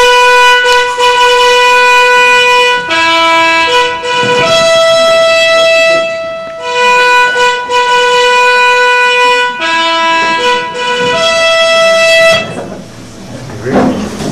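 A fanfare of long held horn-like notes, the same phrase played twice, stopping about twelve seconds in, followed by quieter stage noise.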